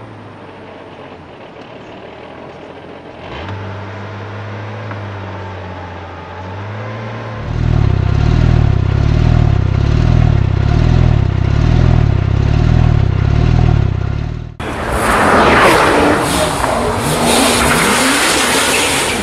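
Porsche 911 GT2 RS twin-turbo flat-six running at a steady low idle, heard muffled from inside the cabin. About seven seconds in it becomes much louder at the exhaust, with a regular swell and fade about once a second, in a car said to have engine problems. Near the end it cuts abruptly to loud revving engine noise.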